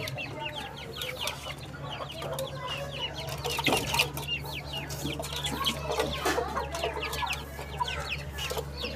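Many chicks peeping constantly in short, high, falling chirps, with some lower clucking from the hens, over a steady low hum.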